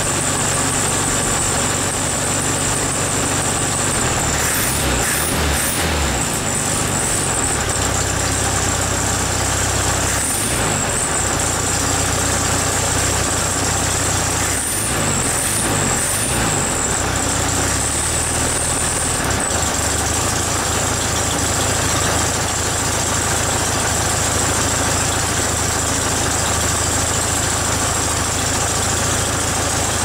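1973 VW Beetle's air-cooled flat-four engine running at idle, revved up and down a few times in the first half and then settling back to a steady idle.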